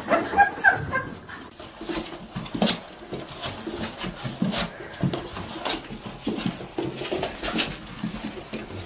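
A dog giving short, high whimpering yips, then, after about a second and a half, a small dog's paws and claws pattering and scrabbling on a hard floor as it runs round and round, in a stream of irregular light clicks and soft knocks.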